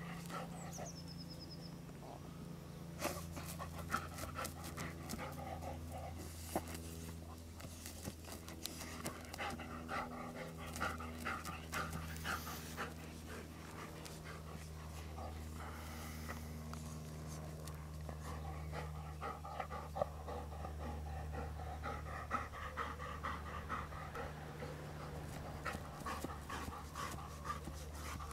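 A dog panting steadily as it noses and digs at a mole hole in turf, with scattered scratches and knocks from its paws in the soil.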